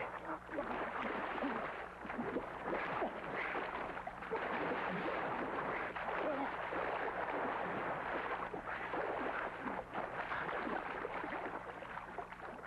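Water splashing and gurgling continuously, over a low steady hum.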